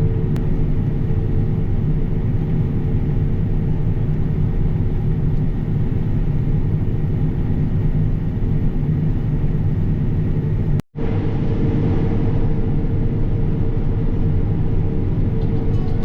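Harvest-field machinery engine running steadily: a loud, low, even drone with a steady hum. It drops out for an instant about eleven seconds in and then picks up unchanged.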